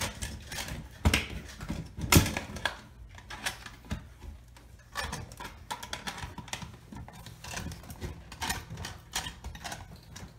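Metal recessed light can being pushed and worked up into a hole cut in a drywall ceiling. Two sharp knocks come about one and two seconds in, then a run of light irregular clicks and scrapes.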